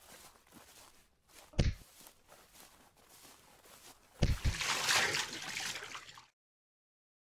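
A dull thud, then a second thud followed at once by a splash of water lasting about two seconds, which cuts off abruptly.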